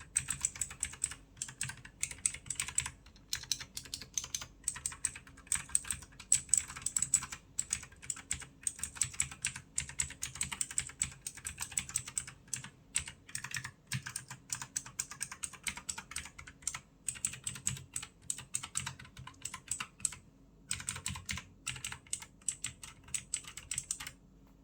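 Typing on a Redragon K688 mechanical keyboard with clicky blue switches: fast, uneven runs of sharp key clicks with a couple of short pauses, stopping just before the end.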